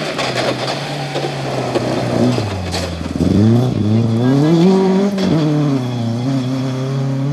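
Ford Escort Mk2 rally car's engine revving hard. It drops in pitch about three seconds in, climbs steeply as the car accelerates, falls back, then holds a steady high rev.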